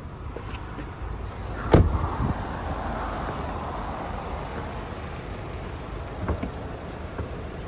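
A car door shutting once with a solid thud about two seconds in, over the steady idle of a Subaru Levorg 2.0 GT-S's turbocharged flat-four engine.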